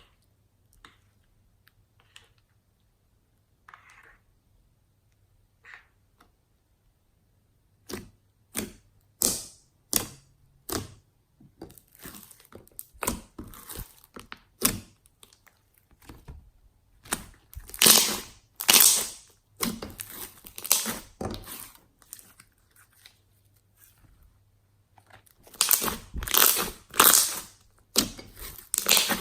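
Slime being squished and pulled apart by hand, giving a long run of short crackling squelches. Before that there are a few faint ticks.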